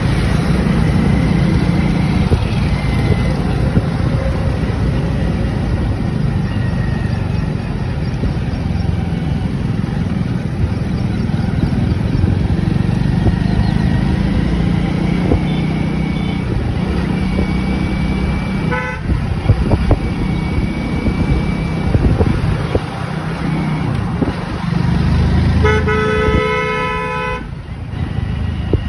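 A motorcycle engine running with road noise while riding in traffic. A vehicle horn honks once briefly about two-thirds of the way in, then sounds again for about a second and a half near the end.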